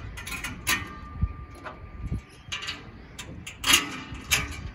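Steel bike-rack top bar and wheel baskets clanking as they are lifted and fitted onto the mast: a handful of sharp metal knocks, one ringing on briefly just under a second in.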